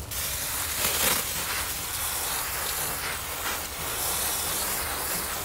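Garden hose spray nozzle spraying a shower of water onto loose soil: a steady hiss that starts abruptly and holds.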